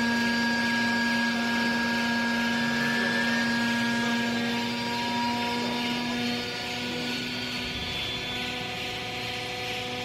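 Vertical hydraulic baler's power unit running under load as it presses second-hand clothes: a steady electric-motor-and-pump hum with a whine and hiss above it. It eases off slightly about two-thirds of the way through.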